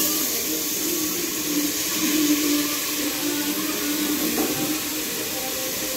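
Washed rice for jeera rice being tipped from a plastic colander into a pressure cooker on a lit gas stove, sizzling with a steady hiss.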